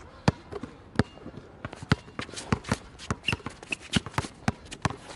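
Basketball dribbled hard and fast on an outdoor court, an irregular run of sharp bounces mixed with lighter sneaker steps and scuffs, and a couple of short squeaks around the middle.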